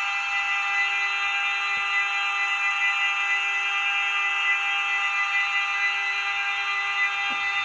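Sound decoder of an Atlas N scale NJ Transit ALP-45DP model locomotive playing its electric-mode running sound through the model's tiny speaker: a steady electric buzzing hum. Two faint clicks come about two seconds in and near the end.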